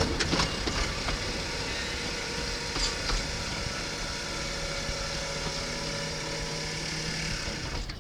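LM Ericsson KLD-43 mechanical level-crossing bell ringing steadily over the rumble of a narrow-gauge steam train crossing, then cutting off suddenly near the end as the crossing clears.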